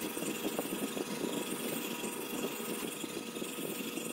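80-micron diamond film on a guided sharpener arm scrubbed back and forth across a chipped ceramic knife edge: a steady, gritty scraping. This is the coarse chip-removal stage, grinding the chips out of the edge.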